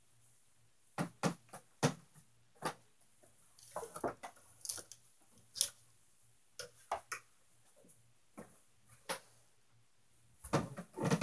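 Irregular clicks and knocks of clothes hangers and garments being handled, with a brief rustle about four seconds in and a denser clatter of knocks near the end.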